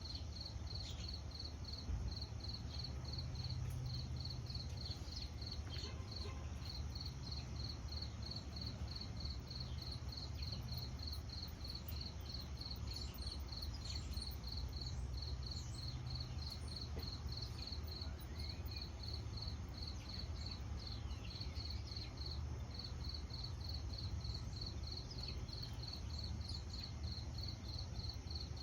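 An insect chirping steadily in an even, rapid rhythm, about three high chirps a second, over a low steady rumble, with a few faint high chirps now and then.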